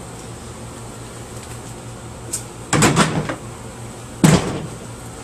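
Hard plastic vacuum housing parts clattering as they are handled and put down, in two bursts: one about three seconds in, a sharper one about a second and a half later.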